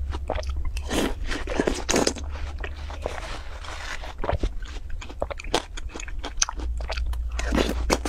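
Close-miked chewing of juicy watermelon: wet, irregular crunching bites, with the spoon scooping into the melon flesh.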